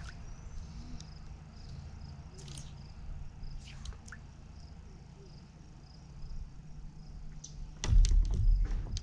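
Fly line swishing through the air in a few false casts over a steady low rumble. About eight seconds in, a louder cluster of knocks and thumps on the inflatable paddleboard.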